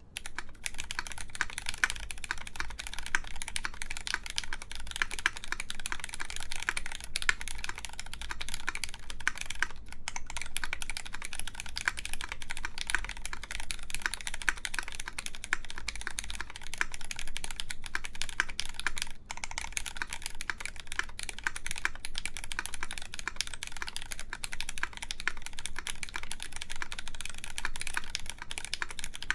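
Continuous typing on a KMAC Happy mechanical keyboard with lubed Cherry MX Black Clear Top linear switches, aluminium plate and GMK keycaps: a dense run of keystroke clacks, with brief pauses about 10 and 19 seconds in.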